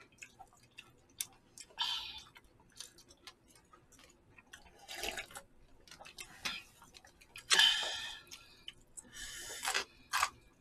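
Eating at a table: scattered small clicks and taps of chopsticks on disposable takeout bowls, with a few short, louder mouth noises of eating noodles, the biggest about seven and a half seconds in.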